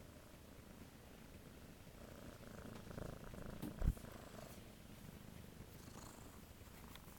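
Tabby kitten purring close to the microphone while being petted, a steady low rumble. A single loud thump just before four seconds in.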